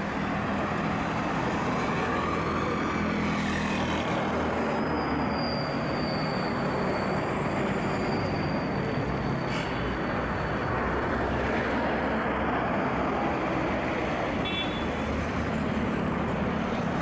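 Steady city street traffic: cars and minibuses passing on a busy road, their engines and tyres making a continuous hum.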